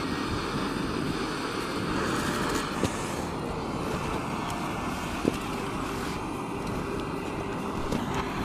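Portable gas torch burning with a steady hiss, its flame aimed into split kindling to light a campfire. There are a couple of sharp clicks about three and five seconds in.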